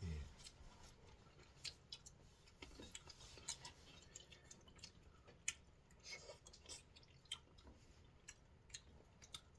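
Faint chewing and scattered light clicks of metal forks against plates as two people eat cut fruit, otherwise near silence.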